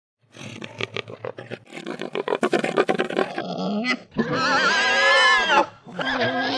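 Hogs grunting in quick rough pulses for a few seconds, then one long wavering squeal and a shorter squeal near the end.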